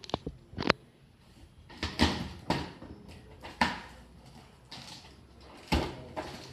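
Cardboard shipping box being handled and its packing tape slit open with a knife: a few sharp knocks and clicks in the first second as the box is moved, then a string of short, scratchy rasps as the blade drags through the tape and cardboard.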